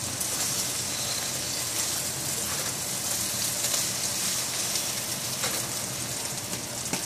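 Beaten eggs frying over fried tortilla pieces in a hot pan: a steady sizzle.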